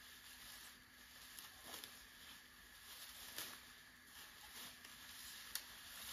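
Near silence: a faint steady hiss with a few light ticks and rustles scattered through it.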